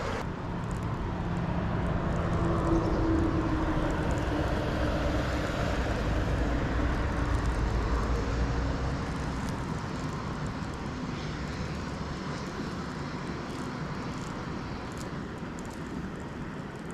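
A passing motor's engine drone that swells over the first few seconds and then slowly fades away.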